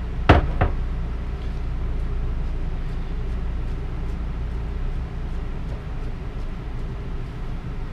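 Two sharp knocks against an electric skillet, then a spatula stirring and scraping through fried rice and scrambled egg with faint light ticks, over a steady low hum.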